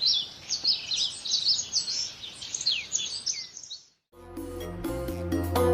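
Songbird chirping in quick, high, downward-sliding notes, which cut off suddenly about four seconds in; background music starts right after.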